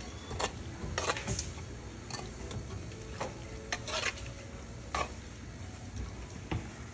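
A metal spoon stirring a sauce of sausage and onions in a frying pan, knocking and scraping against the pan at uneven intervals over a steady sizzle.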